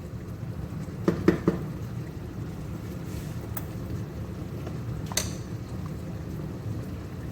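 A cooking utensil is tapped three times quickly on the rim of a cooking pot about a second in, then a single sharp click near five seconds, over a steady low hum.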